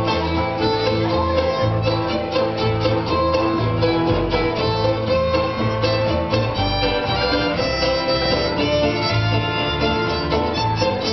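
Acoustic jazz band playing an instrumental tune live, a sustained melody over a steady plucked rhythm.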